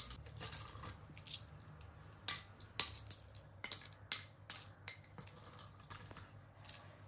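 Cowrie shells clicking as they are dropped one at a time into the pits of a wooden pallanguzhi (mancala) board, a series of light, irregular clicks.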